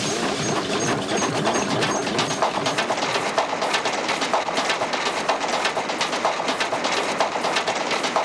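Rapid rhythmic clattering of a ride running at speed along a track, like wheels over rail joints, the clicks growing sharper after about two seconds.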